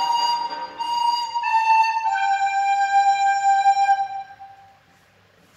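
Recorder playing the last notes of a tune, ending on a long held note that fades away about five seconds in.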